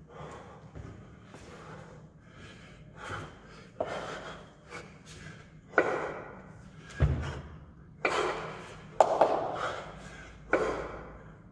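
A lifter working two 24 kg kettlebells through long-cycle reps: a series of sharp, forceful breaths, louder and closer together from about six seconds in. One heavy thud comes about seven seconds in.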